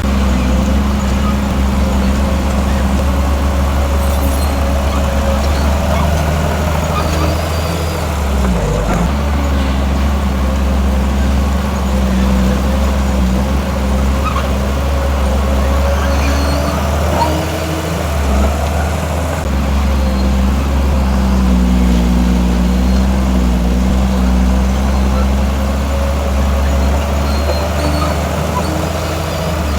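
Heavy diesel engine of earthmoving machinery running steadily, a continuous low drone whose pitch shifts slightly as the load changes.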